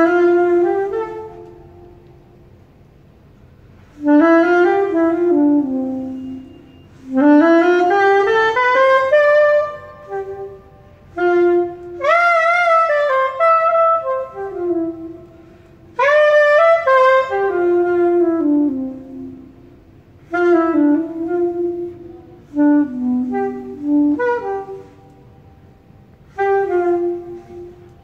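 Curved soprano saxophone played solo in short improvised jazz phrases with brief pauses between them; several phrases open with a quick upward scoop in pitch.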